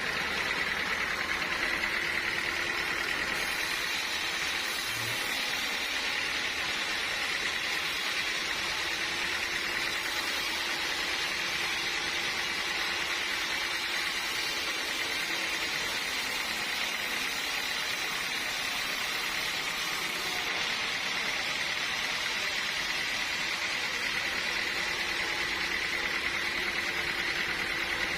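Sawmill machinery running steadily, an even mechanical noise with a faint high whine that holds without change.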